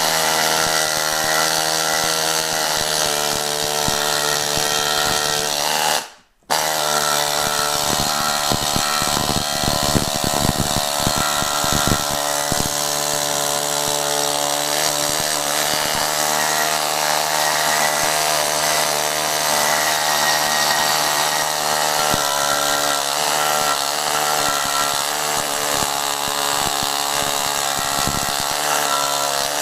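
Harbor Freight air-powered needle scaler, its bundle of steel needles hammering on a cast-iron lathe casting and stripping off the paint. A loud, steady buzz that stops for a moment about six seconds in, then starts again.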